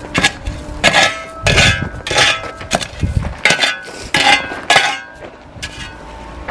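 Hard clinking knocks on stone, about ten strikes at a steady rhythm a little over half a second apart, easing off near the end.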